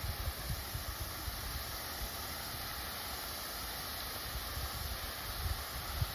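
Steady hissing noise, with wind rumbling unevenly on the microphone.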